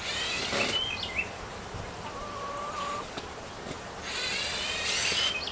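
Power drill buzzing in two short bursts, once at the start and again about four seconds in, most likely driving screws into the new boards of the garden bed.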